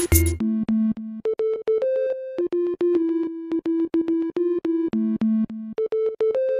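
Electronic background music. The drums and bass drop out about half a second in, leaving a repeating synthesizer melody of short, evenly spaced notes.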